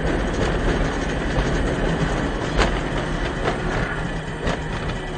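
Steady road and engine noise heard from inside a moving vehicle on a wet road. A low hum runs under it, with a few short knocks or rattles; the sharpest comes about two and a half seconds in.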